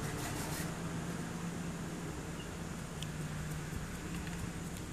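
A steady low hum over a background hiss, with a faint click about three seconds in.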